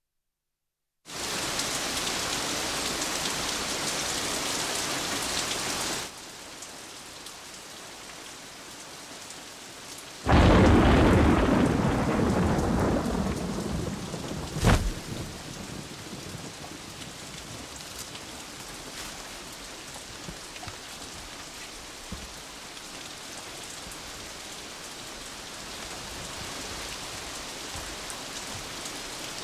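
A rainstorm. Heavy rain starts suddenly about a second in and eases to a steadier, softer rain a few seconds later. About ten seconds in a loud thunderclap breaks and rumbles away over several seconds, with a sharp crack soon after, while the rain keeps falling.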